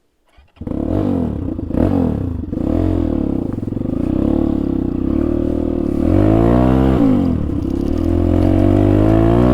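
Motorcycle engine cutting in suddenly about half a second in, then running hard off-road, its pitch rising and falling again and again as the throttle is opened and closed, with one big swell of revs around two-thirds of the way through.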